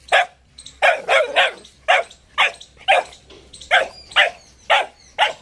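Boxer puppy barking in a steady run of short yaps, about two a second.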